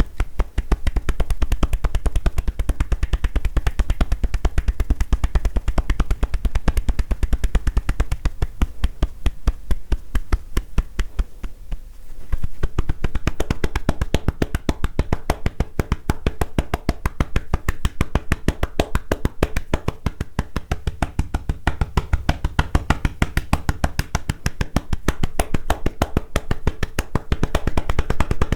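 Tapotement massage: hands rapidly tapping a person's head or shoulders in a fast, even rhythm of hollow pops, about seven strikes a second. Just before twelve seconds in the strikes briefly go lighter, then resume with a deeper thud.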